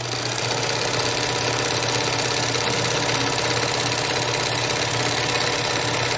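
Early-1970s Bernina Record 830 sewing machine running steadily at speed, its motor humming under the rapid clatter of the needle and feed sewing a zigzag stitch along a folded fabric edge; it stops near the end.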